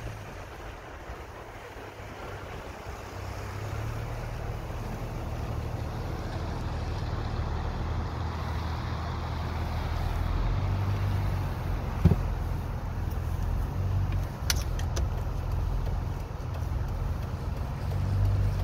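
Car running at low speed, heard from inside: a steady low engine hum with tyre noise on wet pavement that swells and fades, and a sharp click about twelve seconds in.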